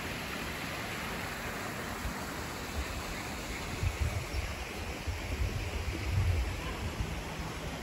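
Steady background hiss with irregular low rumbles between about three and a half and six and a half seconds in.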